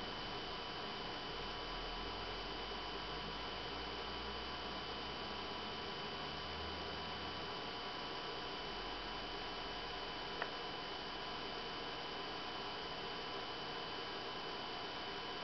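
BenQ W500 LCD projector's cooling fans running steadily: an even rushing noise with a faint high-pitched whine. A single sharp click sounds about ten seconds in.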